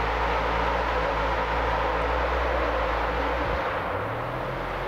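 Steady vehicle engine and drive noise, with the low engine tone shifting about three and a half seconds in.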